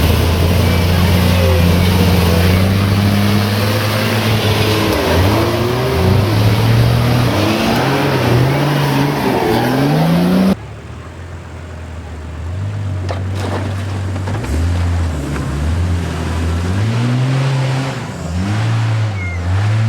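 Nissan Patrol Y61's engine working off-road, its revs rising and falling again and again. About halfway the sound drops suddenly to a quieter level, then the revs keep swinging up and down.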